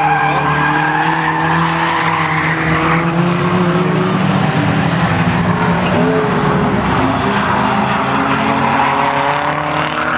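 Several rear-wheel-drive stock cars racing together, their engines revving at different pitches that rise and fall as they pass, with tyres squealing as they slide through the bend.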